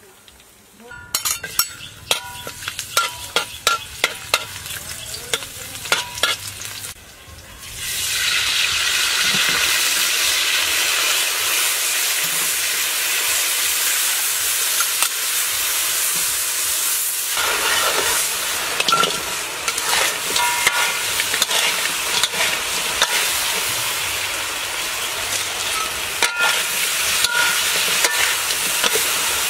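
Chicken pieces frying in a hot pan. A run of sharp clinks and knocks comes first, then a loud, steady sizzle starts about eight seconds in and goes on, with the occasional knock of a utensil stirring.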